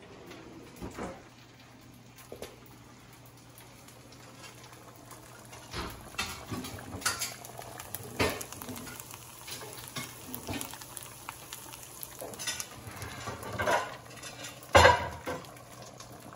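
Pots, pans and cooking utensils being handled on a stovetop, with scattered clinks and knocks and one sharp, loud knock near the end. Green onions sizzle faintly in a frying pan underneath.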